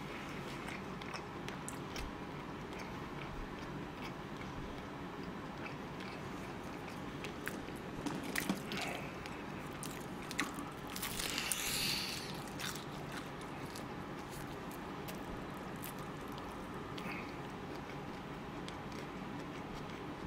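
Close-up chewing and biting of fried chicken, with small clicks throughout and a louder stretch of crunching for about two seconds just past the middle, over a steady low room hum.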